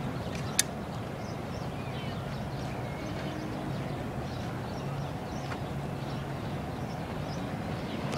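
Outdoor city street ambience: steady traffic noise with scattered faint footsteps on pavement, and one sharp click about half a second in.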